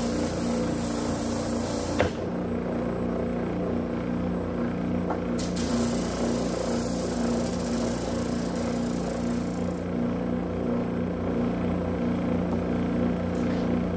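Homemade conveyor drum sander running, its electric motor spinning the sanding drum with a steady hum. A board is fed under the drum, and a high hiss of sanding comes in twice: briefly at the start and again for about four seconds from around five seconds in. A single click comes at about two seconds.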